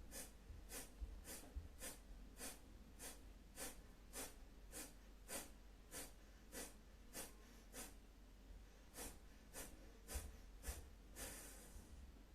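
Kapalabhati breathing: a woman's sharp, forceful exhalations through the right nostril, the left held shut, evenly paced at a little under two a second, about twenty strokes. A longer breath follows near the end as the round finishes.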